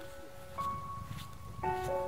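Background music: slow, sustained melodic notes, with a new note coming in about half a second in and another near the end.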